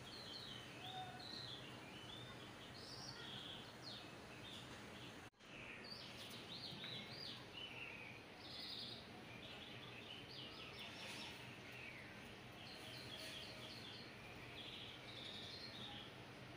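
Faint birds chirping and twittering over a steady background hiss; the sound cuts out for a moment about five seconds in.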